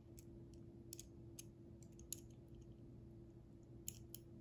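Faint, irregular small clicks of glass and silver beads knocking against each other and the threader rod as they are handled and slid along it, over a low steady hum.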